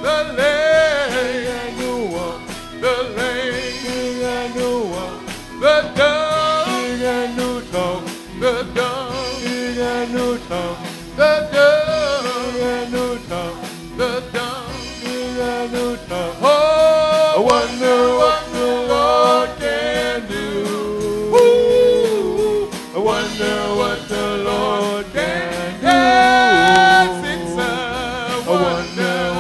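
Live gospel song: a lead singer on a microphone sings long, wavering notes over a band with a steady drum beat.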